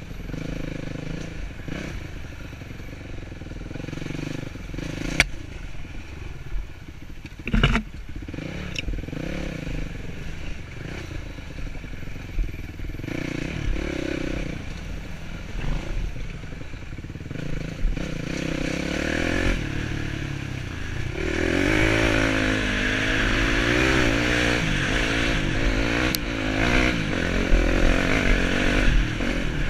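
Off-road dirt bike engine rising and falling in pitch as the throttle is worked on a rough trail, with clatter and a few sharp knocks from the bumpy ground. In the last third the engine pulls harder and louder.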